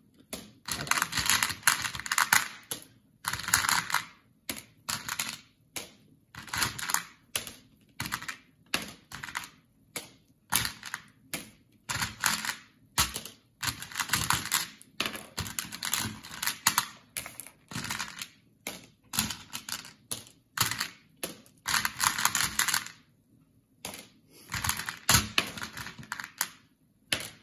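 Mike and Ike candies rattling and clicking against a clear plastic bowl as fingers with long acrylic nails rake through and pick them out. The clicking comes in short bursts, roughly one a second, with a brief pause near the end.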